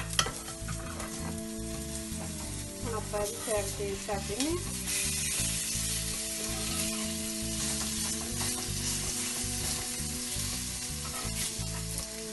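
Grated-potato pancakes sizzling as they fry in oil on a flat griddle (tawa), with occasional scrapes and taps of a spatula pressing them down. The sizzle gets louder about five seconds in.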